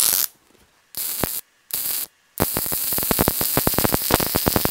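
MIG welder arc on a steel flatbed's corner seam: a burst that stops just after the start, two short half-second bursts, then a long continuous run from about two and a half seconds in, hissing with a fast crackle. The welder is turned up hot for deep penetration.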